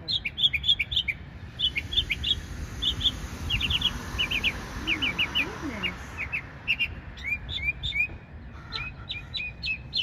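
Northern mockingbird singing: quick runs of short, high chirping notes, each phrase repeated a few times before the bird switches to a different one.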